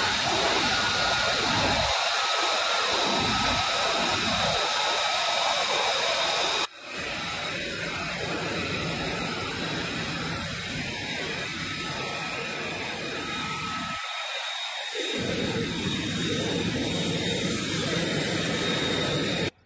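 F-35B Lightning II's single F135 turbofan running on the ground: a steady rushing noise with a high thin whine over it. It drops suddenly and comes back slightly quieter about seven seconds in, and cuts off abruptly at the very end.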